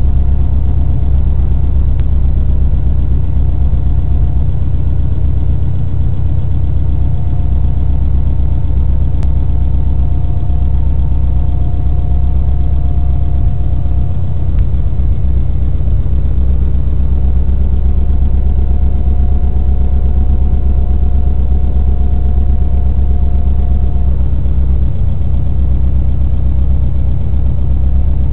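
Subaru WRX's built EJ257 turbocharged flat-four engine running at a steady speed, with a persistent ticking that the owner traces to the right-hand cylinder head area; its cause is unknown.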